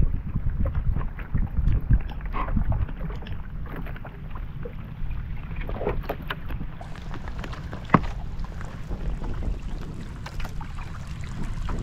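Wind buffeting the microphone on a small boat at sea, with a few light knocks and one sharp knock about eight seconds in.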